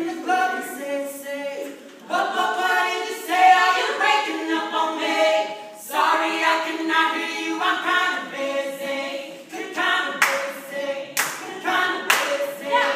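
A cappella group singing together in harmony, with no instruments. A few sharp claps come in near the end.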